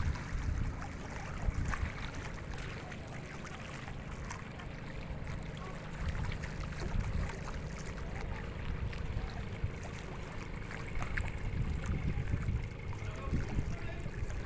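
Wind buffeting the microphone in uneven gusts over open river water, with faint lapping of small waves.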